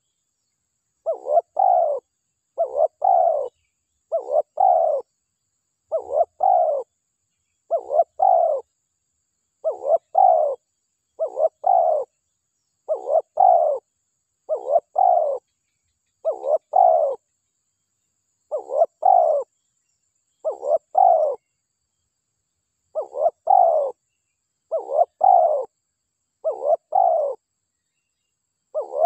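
Spotted dove cooing: short phrases of two or three falling coos, repeated steadily about every two seconds, with one slightly longer pause past the middle.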